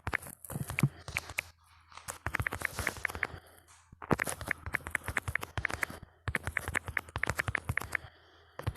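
Smartphone on-screen keyboard clicking as someone types fast: quick runs of key clicks broken by short pauses.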